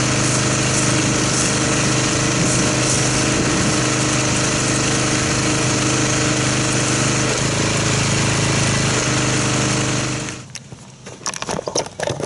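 Pressure washer running steadily with the hiss of a foam gun spraying car-soap foam, then shutting off abruptly about ten seconds in. A few light clicks and knocks follow.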